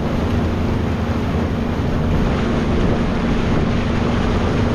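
Motorboat engine running steadily under way, a constant hum, with wind buffeting the microphone and water rushing past the hull.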